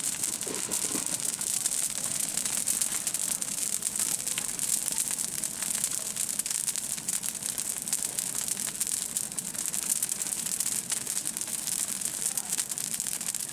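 Dry rice stalks rustling and crackling as they are handled, over a steady high-pitched hiss.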